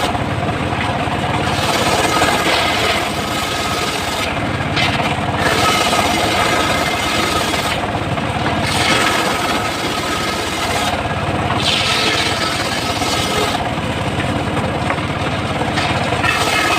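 Homemade circular sawmill blade ripping a teak log, over the steady running of the machine that drives it. The high hiss of the cut fades and comes back every few seconds as the blade works through the wood.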